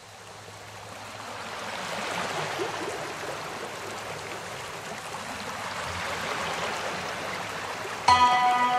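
Water rushing from a hose and splashing onto heaps of carrots being washed: a steady rushing noise that swells over the first two seconds. Music starts abruptly near the end.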